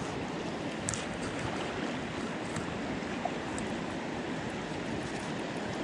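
Shallow mountain river running over stones in a steady rush, with a brief click about a second in.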